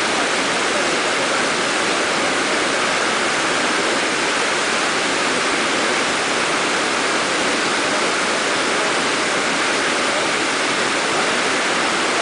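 Waterfall: water rushing and splashing in a steady, unchanging wash of noise.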